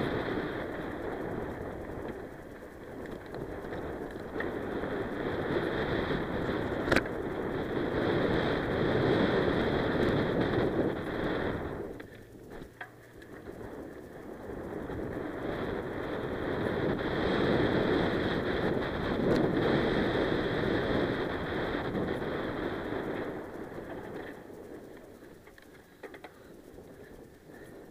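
Wind rushing over an action camera's microphone, with mountain bike tyres rolling on a dirt and gravel track, swelling and easing in long waves and dropping away briefly about twelve seconds in. One sharp knock sounds about seven seconds in.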